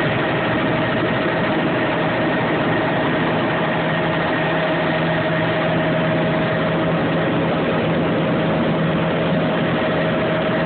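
Helicopter engine and rotor noise heard from inside the cabin: a loud, steady drone with a constant whine running through it.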